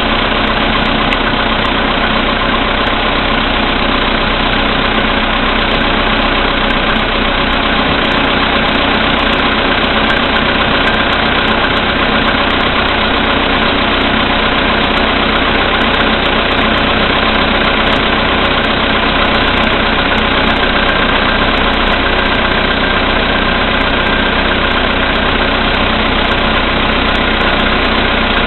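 Volkswagen Polo Sedan's CFNA 1.6-litre four-cylinder petrol engine idling steadily from a cold start, with a knock (стук) in the running; electrical load from the lights and heated rear window makes the knock stronger.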